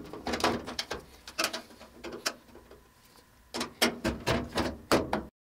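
Screwdriver clicking and scraping against a screw and the washer's valve mounting plate as the plate is pulled into line with its screw hole; irregular clusters of sharp clicks that cut off suddenly near the end.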